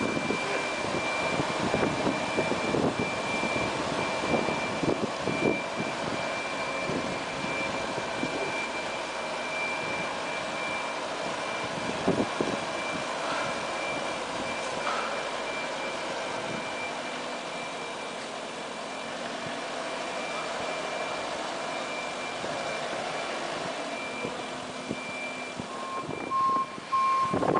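Combilift four-way forklift running as it travels with a load of long pipes, its high-pitched warning beeper sounding over the engine. A lower beeping comes in near the end.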